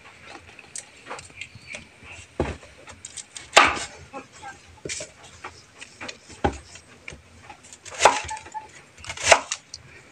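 Kitchen knife chopping banana blossom on a wooden cutting board: irregular strikes of the blade on the board, about six louder chops a second or so apart with lighter slicing ticks between.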